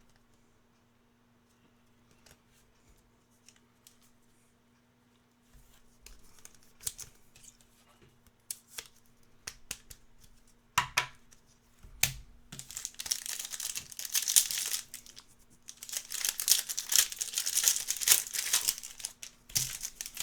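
Near silence for about five seconds, then scattered clicks of handling, then a trading card pack's foil wrapper being torn open and crinkled in two long stretches over the last eight seconds.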